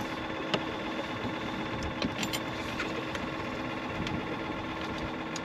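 Boat motor running with a steady, even hum, with a few light clicks and knocks from gear in the boat.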